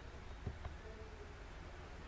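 Quiet room tone: a low rumble with a faint intermittent hum, and two soft knocks about half a second in.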